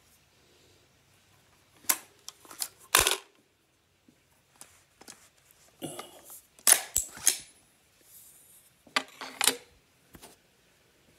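Metallic clicks and clacks from a .50 Beowulf AR-style rifle being worked by hand, in three quick clusters, as a round that failed to feed from the magazine is cleared.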